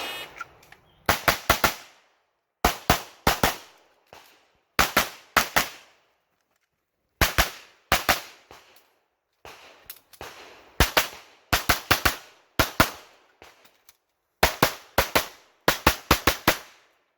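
Shot timer beeps once at the start, then a competition pistol fires rapidly in quick strings of two to five shots. There are short pauses between the strings.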